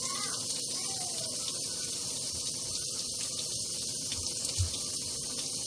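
Kitchen faucet running steadily into the sink, with a soft low knock about four and a half seconds in.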